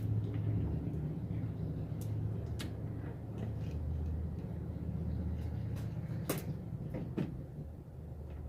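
Handling noise as a front turn-signal lamp is fitted into the bumper: a handful of sharp clicks and knocks, the loudest about six seconds in, over a steady low rumble.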